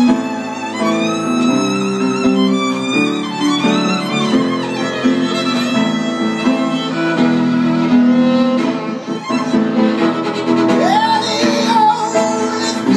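Violin played with the bow, sliding up between notes and holding wavering high notes, over a sustained piano accompaniment.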